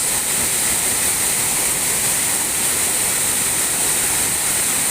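Waterfall pouring, a steady rushing roar of falling water.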